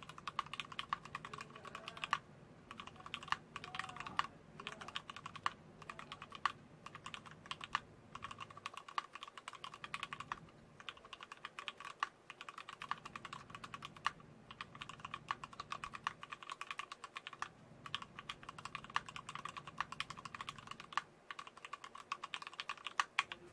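Continuous typing on a mechanical keyboard with lubricated vintage Wyse black linear switches on 62 g springs, mounted on a brass plate. The keystrokes come as a quick, even clatter of clicks in runs of several seconds, with short pauses between runs.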